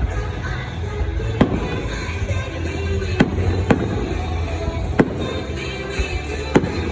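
Fireworks bursting overhead: five sharp bangs spread irregularly through a continuous low rumble of further explosions, with music playing.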